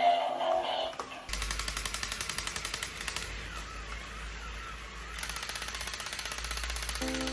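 Electric toy gun firing in two rapid bursts of about ten shots a second, with a quieter mechanical whirring between the bursts.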